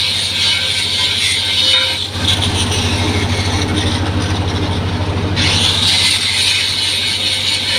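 4-inch angle grinder beveling a metal edge: a loud, steady grinding noise. About two seconds in it gives way to a low pulsing hum for roughly three seconds, then the grinding resumes.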